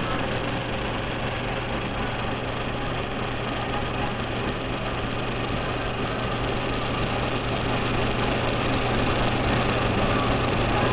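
35mm film projector running: a steady mechanical whir of its motor and film-transport mechanism, with a constant low hum.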